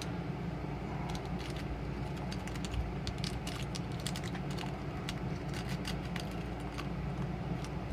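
Small metal items clicking and rattling against a small metal mint tin as a repair kit is packed into it, in irregular light clicks over a steady low hum.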